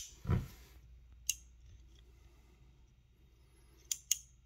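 Metal clicks of Duratech cobra-head water pump pliers as the push-button selector is worked and the jaw is shifted along its toothed slide. A click and a soft knock at the start, another click about a second in, and two quick clicks near the end.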